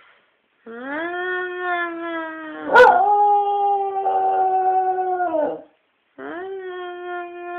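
Dog 'singing' in long drawn-out howls, each sliding up in pitch and then held steady. About three seconds in, the first howl breaks with a sharp crack into a slightly higher note that is held for a few seconds; after a short pause a second howl begins near the end.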